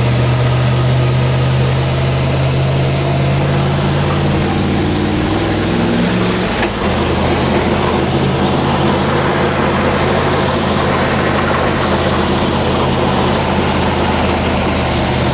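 1973 GMC C1500 pickup's 307 V8 running steadily under load while driving through floodwater, heard from inside the cab over the hiss of water spray. About seven seconds in there is a short knock, and the engine note drops.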